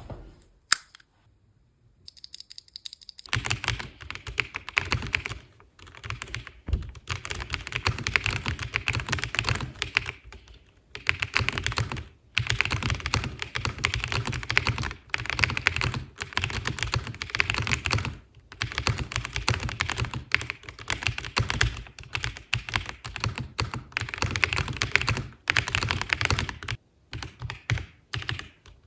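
Typing on a MelGeek Modern97 gasket-mount mechanical keyboard: quick runs of key strokes broken by short pauses, starting about three seconds in.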